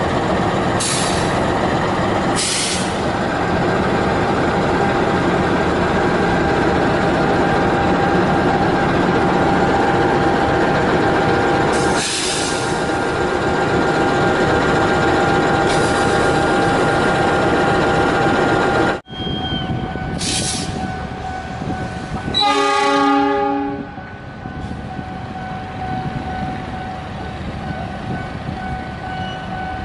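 CC206 diesel-electric locomotive passing close by at low speed, its diesel engine running loudly and steadily. Later the locomotive sounds one horn blast of about a second and a half, then its engine runs on more quietly from further away.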